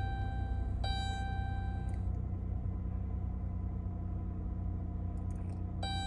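Dodge Grand Caravan's V6 engine idling steadily just after being started, heard from inside the cabin. A high ringing tone sounds for about a second, about a second in, and again near the end.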